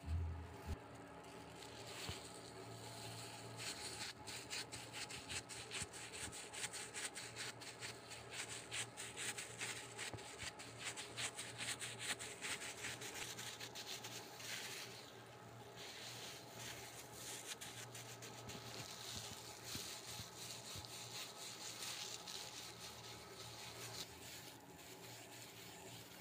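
Soft rubbing and scraping of yellow yeast dough being worked on a floured counter by a gloved hand and a wooden rolling pin, in many quick strokes that are densest in the first half.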